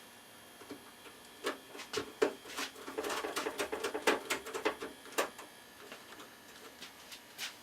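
A screwdriver driving in the bracket screw of an expansion card in a metal PC chassis: a run of irregular small clicks and scrapes that thins out after about five seconds, with one more click near the end.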